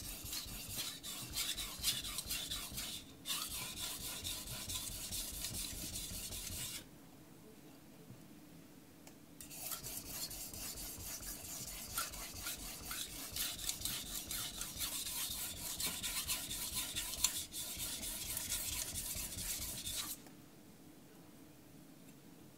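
Carbon-steel (aogami) knife blade being stroked back and forth on a wet King 1000 grit whetstone, a rhythmic gritty rasping, setting up the edge on a dulled blade. It pauses about seven seconds in, resumes about two and a half seconds later, and stops about twenty seconds in.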